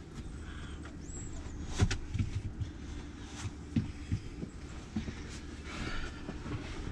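Soft bumps and shuffling of a man sitting down and leaning back on the padded cushions of a camper van's bed, with a few dull knocks, the loudest about two seconds in, over a low steady hum.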